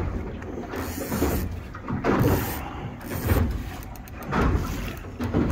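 Big-game fishing reel being cranked against a hooked southern bluefin tuna, its gears and ratchet clicking in surges about once a second over a steady low rumble.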